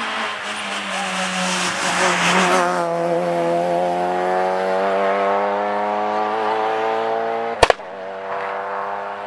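Rally car passing close at speed, a rush of engine and tyre noise, then its engine note climbing steadily as it accelerates away down the stage. A single sharp crack about two-thirds of the way through.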